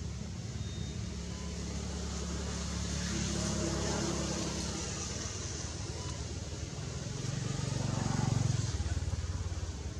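Engine of a motor vehicle running and passing, with a steady low hum that swells about halfway through and is loudest about eight seconds in. It drops away sharply just before the end.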